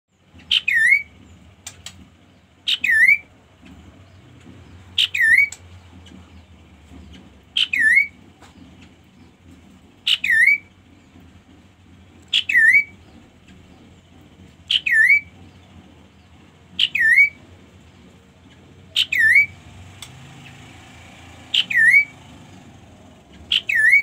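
Chestnut-capped babbler (kaso-kaso) singing: one loud, clear note repeated about eleven times, a little over two seconds apart. Each note is a quick downward slur that ends in a short upturn.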